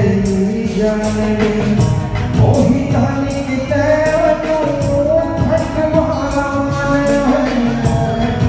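Live Punjabi song: a male singer holding a long, wavering melodic line over a band with drum kit, dhol and electric guitar keeping a steady beat.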